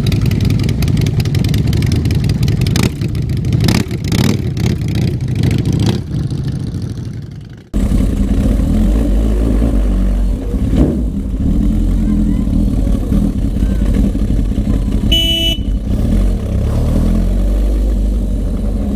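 Several cruiser motorcycles running and revving as their riders move off, then a cut to the steady low running of a single motorcycle engine heard from on board. A short horn toot sounds about fifteen seconds in.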